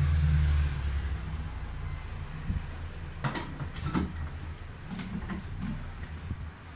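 Clicks and knocks of hands handling a stainless-steel juice extractor before it is switched on, with two sharp clicks about three and four seconds in, over a steady low hum.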